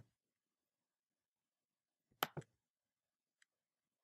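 A computer mouse double-clicking, a little over two seconds in, selecting a file, then one faint tick; otherwise near silence.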